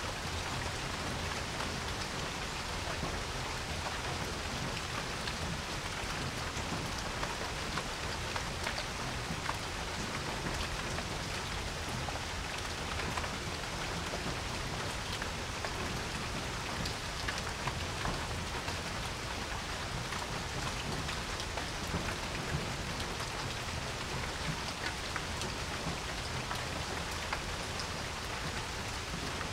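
Steady rain falling on a porch, with many individual drops ticking sharply against the patter.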